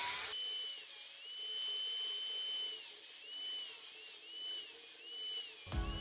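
High-pitched whine of a small power tool's motor, dipping in pitch again and again as it is loaded. Music comes in near the end.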